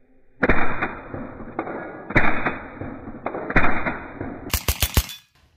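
Hatsan Sortie .22 (5.5 mm) semi-automatic PCP air pistol firing: three loud shots about half a second, two, and three and a half seconds in, each with a short rushing tail, and fainter clicks between them. Near the end comes a quick run of four or five sharp clicks.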